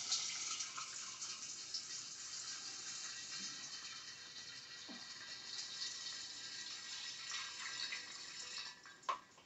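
Vodka poured through a funnel into a large glass carboy, a steady faint stream of liquid splashing onto the liquid and walnut pieces below. The pour fades out shortly before the end, followed by one light knock.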